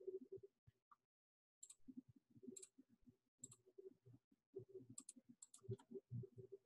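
Faint, irregular clicks of a computer mouse over near silence.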